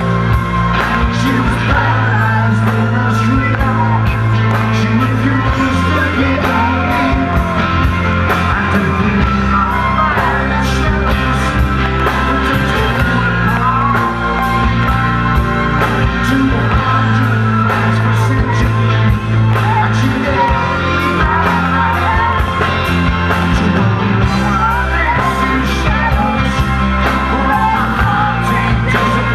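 Live rock band playing, with bass, drums and melodic lines, a singing voice and some yells over it.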